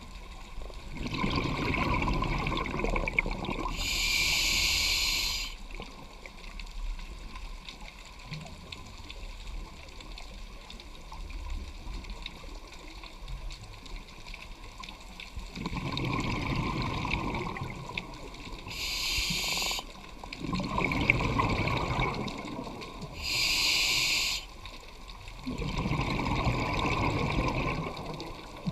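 A scuba diver breathing through a regulator underwater: short hissing inhalations alternate with longer bubbling exhalations, about four breaths in all, with a quieter stretch of several seconds in the middle.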